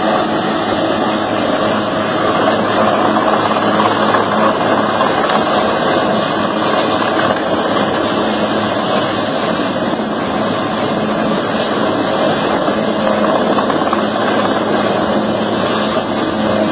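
Helicopter's turbine and rotor noise, a loud, steady drone that does not change.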